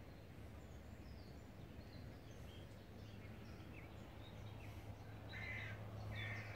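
Faint riverside ambience with small birds chirping now and then, and a few louder, harsher bird calls repeating near the end, over a low steady hum.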